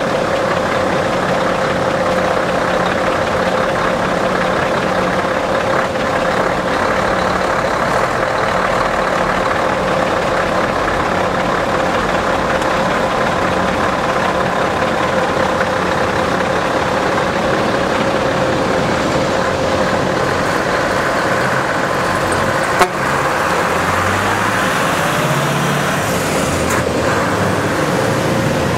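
Scania V8 truck engine running steadily as the tractor unit pulls a 20 m concrete bridge beam on a semi-low trailer, with one sharp click late on and a few low shifts in engine pitch just after it.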